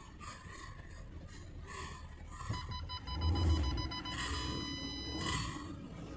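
2004 Porsche Cayenne Turbo making a repeated clicking over a low running rumble, a clicking the owner suspects comes from the front differential. Partway through, a high ringing tone sounds, pulsing at first and then held for about a second before it stops.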